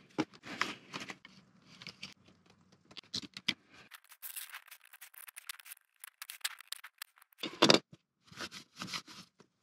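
Hand-held razor scraper scraping acetone-softened gunk off the edge of a plexiglass window, in short uneven scrapes, with one louder scrape a couple of seconds before the end.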